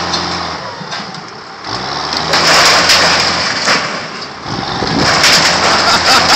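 Vehicle engine running, rising in pitch and revving hard about two seconds in and again near the end, as it strains to pull down a steel awning.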